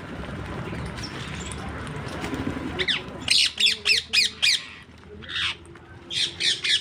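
Parrots squawking: a quick run of short, harsh calls that fall in pitch, starting about three seconds in, with a few more after a short pause. Before the calls there is a steady background hiss.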